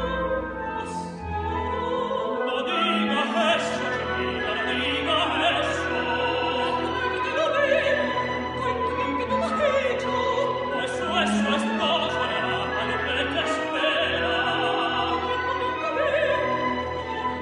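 An operatic soprano singing with wide vibrato over a symphony orchestra with strings, in a duet with a tenor. Her voice comes in strongly about two and a half seconds in.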